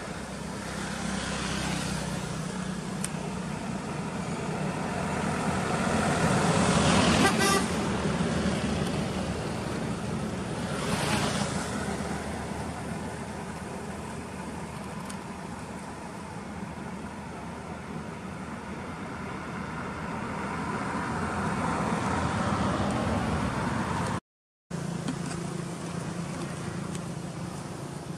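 Road traffic: vehicles passing on a paved road, the noise swelling and fading, loudest about seven seconds in and again around eleven seconds, over a steady low engine hum. The sound cuts out for a moment near the end.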